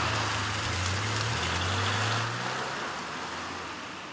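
A car on a wet road: a low engine hum under a steady hiss of tyres on wet tarmac, the hum dropping out about halfway and the whole sound slowly fading after that.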